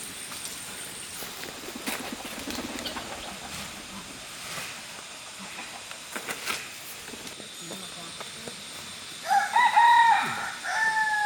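A rooster crows once near the end, a loud drawn-out call that rises, holds and falls off. Before it there is only low background noise with a few faint knocks.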